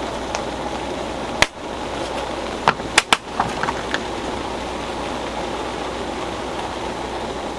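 Steady noise of heavy rain, broken by a sharp click about a second and a half in and three quick clicks close together around three seconds in.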